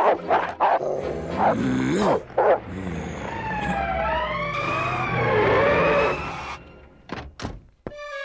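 Cartoon soundtrack sound effects: a run of thuds and knocks, then several overlapping sliding tones that rise and fall for about three seconds, over music, with a few sharp knocks near the end.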